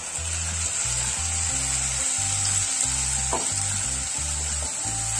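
Wet red chilli, onion and garlic paste sizzling steadily as it hits hot oil in a non-stick kadhai, stirred in with a wooden spatula.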